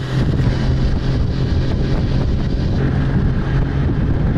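Snowmobile engine running steadily as it tows a sled over snow, a continuous low drone, with heavy wind noise on the microphone.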